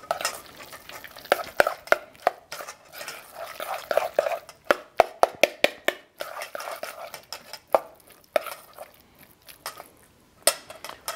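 A spoon stirring guacamole in a stainless steel mixing bowl, mixing in kosher salt. Irregular clinks and scrapes of the spoon against the metal come between wet, squelching mashing.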